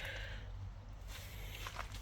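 Soft footsteps on wet ground, over a low steady rumble.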